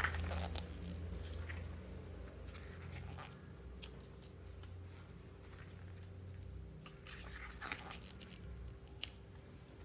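Faint scraping and a few light clicks of paper handled as photobook pages are turned, over a low steady hum.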